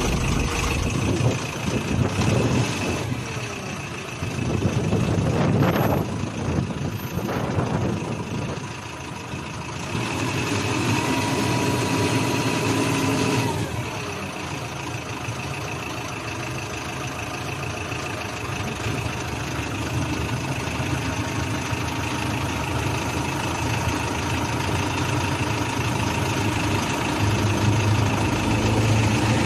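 Forklift engine running under load, its revs rising and falling a few times, with a steady whine for a few seconds near the middle.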